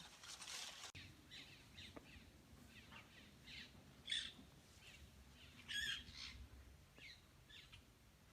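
Birds chirping: a run of short, faint descending calls repeated every half second or so, with two louder calls about four and six seconds in.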